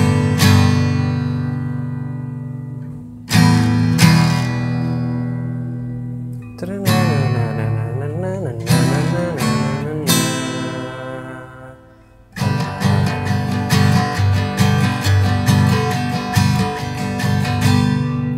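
Acoustic guitar played slowly through the chord progression G, E minor, D, C, D, A minor and back to G. The first chords are struck one at a time and left to ring out. From about two-thirds of the way in comes quicker, repeated strumming.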